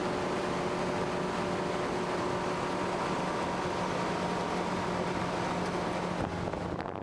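Motorboat engine running at a steady speed, a constant hum over a wash of noise; the engine note fades away about six seconds in.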